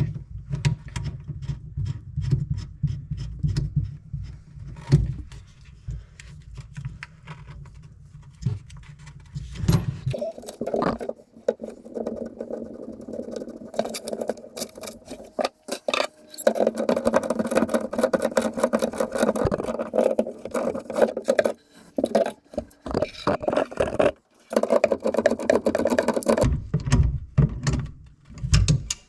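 Hand tools working on under-sink plumbing during a valve change: repeated metal clicks and knocks with stretches of scraping.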